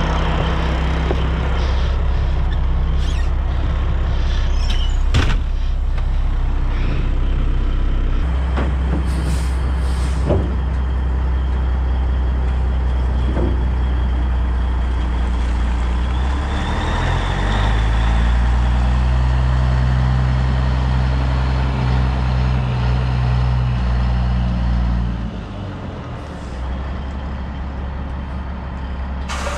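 Heavy diesel truck engine idling, with a few sharp clicks and knocks in the first half; past the middle the engine speed rises, holds higher for several seconds, then drops back and the sound gets quieter near the end.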